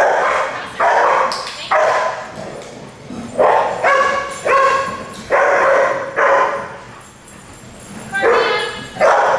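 Dogs barking repeatedly, a sharp bark about every second, with a lull of a second or two late on before the barking picks up again.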